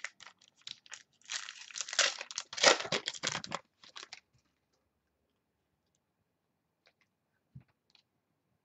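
Foil wrapper of a football trading-card pack crinkling and tearing as it is ripped open by hand, a dense run of crackling over the first four seconds. Then near quiet, with one soft thump near the end.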